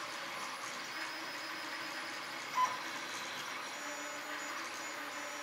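Ord Bot 3D printer running a print: its stepper motors whir steadily as the extruder head travels over the heated bed. A short, louder tone stands out a little over halfway through.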